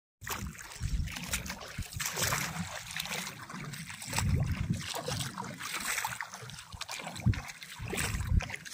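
Wind buffeting the microphone in irregular gusts over a hiss of moving water, with two brief sharp knocks near the end.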